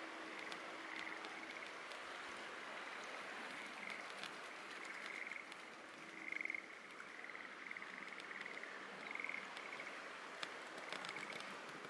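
Frogs calling from flooded rice paddies: short, rapid pulsed trills, each about half a second long, following one another roughly once a second over a steady outdoor hiss.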